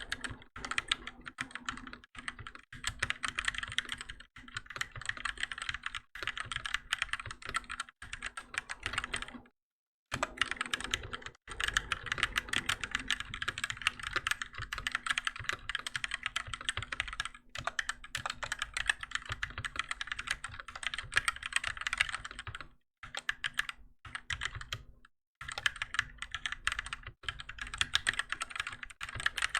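Keychron K6 mechanical keyboard with Gateron Red linear switches being typed on quickly and continuously, a dense run of keystrokes broken by two short pauses.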